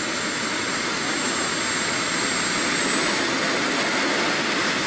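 A model jet's small gas-turbine engine running on the ground: a steady rush of noise with a thin high whine. Around three seconds in the whine climbs in pitch and the sound gets a little louder as the turbine speeds up.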